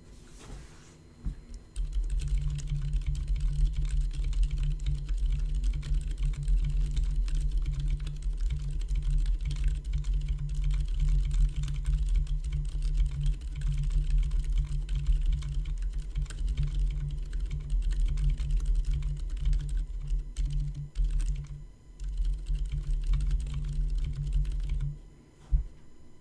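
Continuous typing on an LJD61UP mechanical keyboard fitted with Gazzew Boba U4 silent switches: dense, damped keystrokes with a deep thud. It starts about two seconds in, pauses briefly near the end, and stops just before the close.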